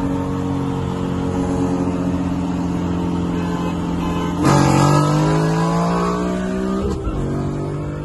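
Mustang GT's Gen 2 Coyote 5.0 V8, heard from inside the car, cruising steadily at first. About halfway through it goes to full throttle, getting louder as the revs climb steadily. Near the end the revs drop at an upshift and start climbing again.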